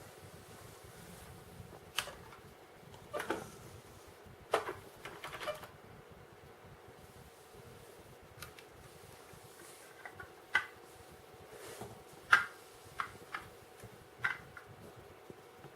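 Irregular light clicks and knocks of hard plastic, as a children's toy vacuum cleaner is handled with its motor off. There are a few scattered knocks in the first half, then a quicker run of sharp ticks near the end, the loudest about twelve seconds in.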